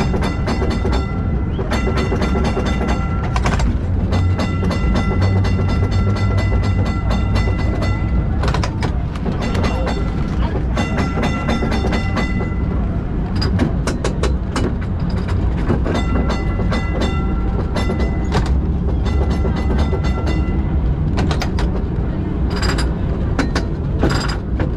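Historic İstiklal Avenue tram running slowly on its rails, heard from inside the car as a steady low rumble of motor and wheels. Over it the tram's warning bell rings in quick runs of rapid strokes, about ten times, each run lasting a second or two, to clear pedestrians off the track.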